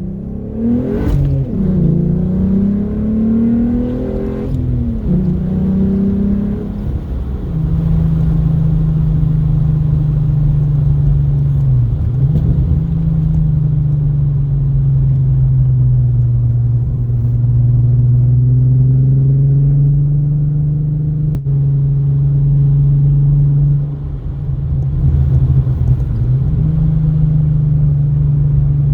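Straight-piped VR6 engine of a MK3 Jetta with 268 cams, a hollowed catalytic converter and the muffler replaced by tubing, its exhaust note rising and falling as it is revved over the first several seconds, with a few sharp pops. It then settles into a steady drone while cruising, dipping briefly about three times.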